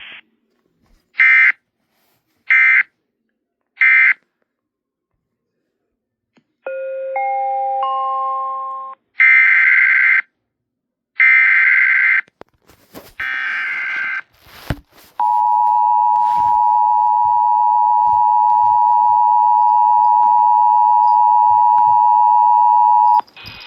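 Emergency Alert System / NOAA Weather Radio alert tones. First three short buzzy data bursts, typical of the end of the previous message, then a quick rising three-note chime. Then three longer data bursts, the header of the next warning, followed by the steady two-tone attention signal, which holds for about eight seconds and cuts off sharply.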